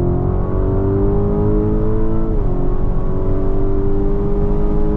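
Lamborghini Urus SE's 4.0-litre V8 under full-throttle acceleration in Corsa mode, heard from inside the cabin: the engine note climbs steadily, drops once at an upshift about two seconds in, then climbs again.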